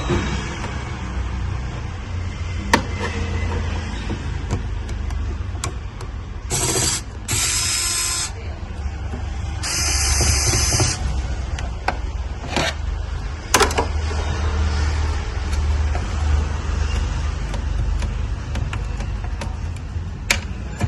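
Scattered clicks and a few short scraping noises of hands and tools working on a computer's casing and parts, over a steady low hum.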